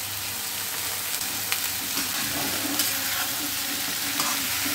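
Chopped vegetables sizzling as they fry in butter in a wok (kadai), with a metal spatula stirring them and now and then clicking against the pan.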